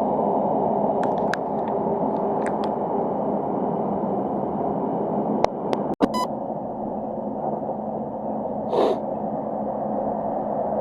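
Steady running noise of a train heard from inside the carriage, a low rumble with a hum. There are a few sharp clicks, and a brief break in the sound about six seconds in.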